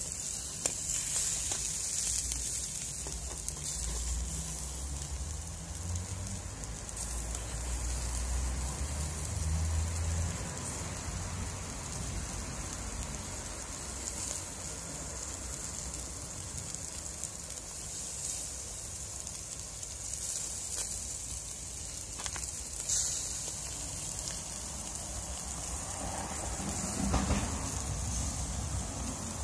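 Yellow croaker fish sizzling over a charcoal fire in a wire grilling basket, with a steady hiss and fine crackling from the hot coals. A low rumble runs underneath for several seconds near the start.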